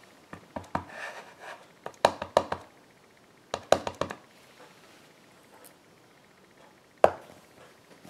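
Wood-mounted rubber stamp tapped repeatedly on an ink pad, in three quick bunches of light knocks, then pressed onto card stock with one sharper knock about seven seconds in.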